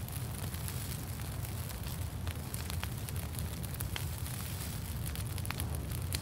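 Campfire crackling, with scattered sharp pops over a steady low rumble.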